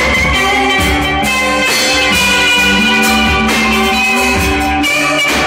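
Live rock band playing: electric guitars holding and bending notes over a drum kit beating steadily.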